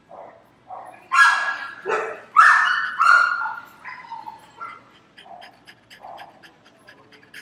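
Another dog barking: four loud barks in quick succession about a second in, then fainter, shorter barks over the next few seconds.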